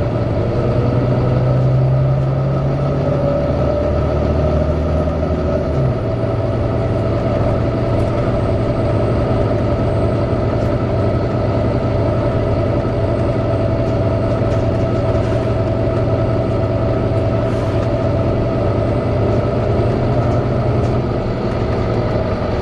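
Volvo B9TL double-decker bus running, with its engine cooling fan making a steady hoover-like whine over the engine note. The whine rises slightly over the first few seconds, and the engine note changes about six seconds in.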